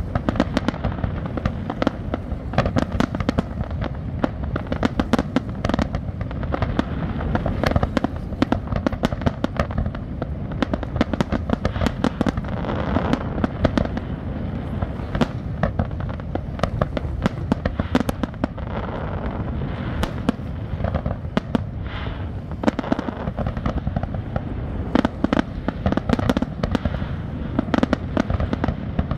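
Fireworks display: a rapid, unbroken barrage of shell bursts and crackling bangs.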